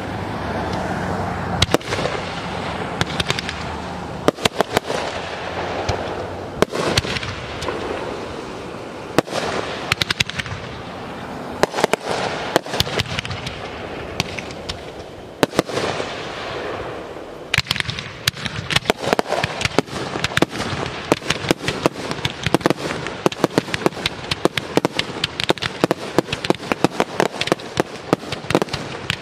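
Aerial fireworks display: shell bursts and crackling, firing unevenly at first, then from a little past halfway turning into a dense, rapid barrage of pops and bangs.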